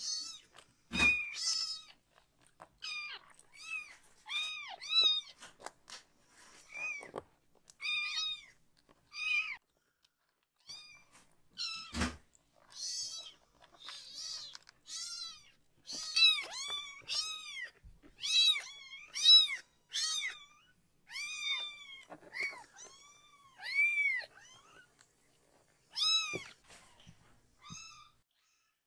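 Very young kittens mewing again and again: short, high-pitched mews that rise and fall, sometimes overlapping. Two sharp knocks, about a second in and near the middle.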